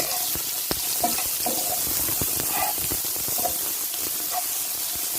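Chopped sweet pepper, onion and celery sizzling as they fry in a pot, a steady hiss with scattered light clicks.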